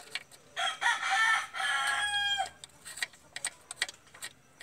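A rooster crowing once, a single call of about two seconds that ends on a held note. Scattered metal clicks of a socket wrench working the bolts are heard before and after it.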